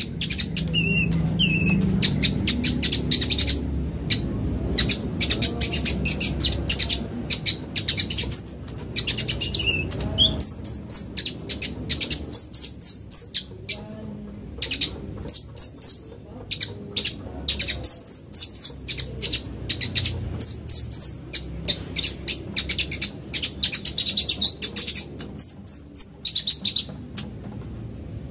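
Male kolibri ninja sunbird singing: rapid runs of thin, high chirps and trills in bursts, with short pauses between them.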